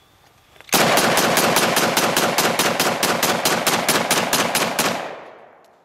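Ruger Mini-14 Ranch Rifle in .223 fired in a rapid semi-automatic string from a 30-round magazine: about twenty shots at roughly five a second, starting about a second in and stopping after some four seconds, with the echo dying away at the end.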